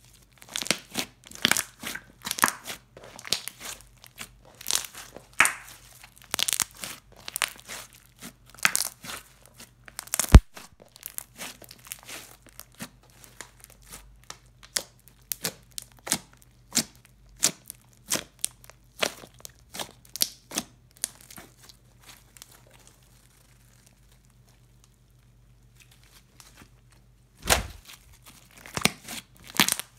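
Clear-based slime with glitter and small beads mixed in, stretched, folded and squeezed by hand, giving a string of sharp sticky pops and crackles. There is one loud snap about ten seconds in, and a near-quiet pause of a few seconds past the twenty-second mark before the popping resumes.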